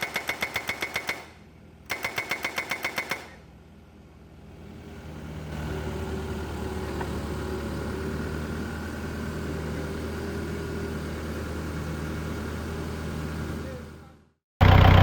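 Hydraulic breaker on a Doosan S55V excavator hammering in rapid blows, about eight a second, in two short bursts over the first three seconds. Then the excavator's Yanmar diesel engine runs steadily, growing louder over a few seconds and stopping abruptly near the end.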